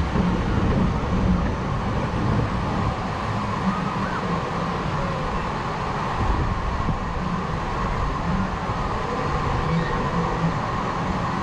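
Steady wind and low rumbling noise on a drop-tower ride camera high up on the tower, with no distinct events.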